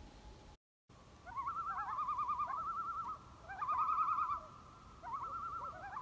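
Common loons giving their wavering tremolo calls across a lake, several voices overlapping, in three bouts with short pauses between. The sound drops out completely for a moment near the start, just before the calls begin.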